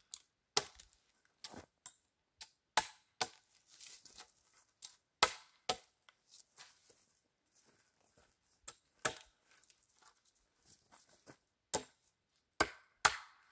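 Gränsfors Bruk hatchet chopping leftover limb stubs off a wooden pole: a string of sharp, irregular strikes with short pauses between.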